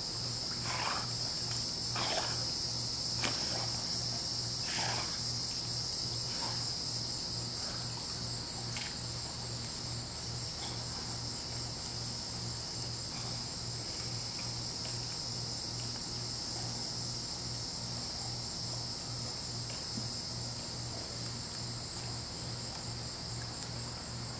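Steady high-pitched drone of an insect chorus, unchanging throughout. Over the first nine seconds a few brief, soft sounds come about a second apart.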